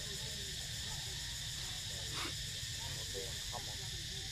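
Steady, high insect drone with a low rumble of wind underneath, faint short wavering sounds in the background, and one brief louder sound about two seconds in.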